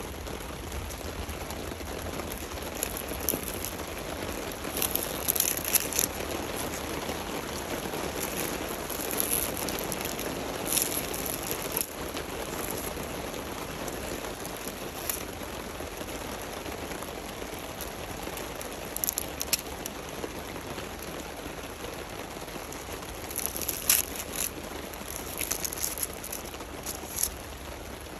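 Dry, papery dead succulent leaves crackling and crunching in the fingers as they are plucked, in short crisp bursts every few seconds. Steady rain patters underneath.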